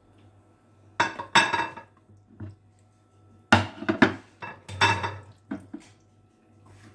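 A plastic cutting board and a ceramic plate being set down and shifted on a marble countertop: a series of sharp knocks and clatters, loudest about a second in and again from about three and a half to five seconds in.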